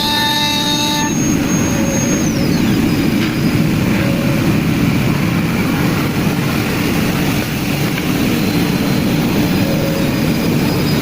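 CNC wood lathe running, a steady loud machining noise as the tool heads turn wooden chair legs. A high motor whine drops in pitch and fades about two seconds in.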